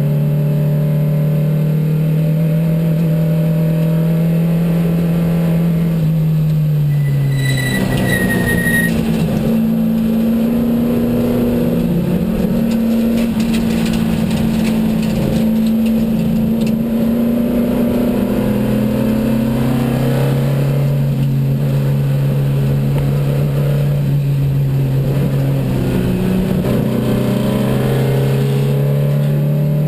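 Porsche 914's 2270 cc air-cooled flat-four race engine under load, heard from inside the cabin. The engine note steps up about seven seconds in, settles lower around twenty seconds and climbs again near the end. There is a brief high squeal about eight seconds in.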